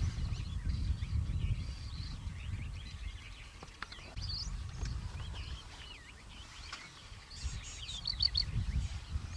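Several wild birds chirping and calling in short high notes, with a quick run of notes near the end, over a low, uneven rumble.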